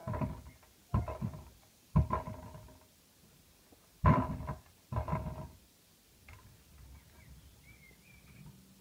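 Kick scooter hitting the ground: five sharp metallic clanks, each with a short ring, over the first five seconds, then only faint sounds.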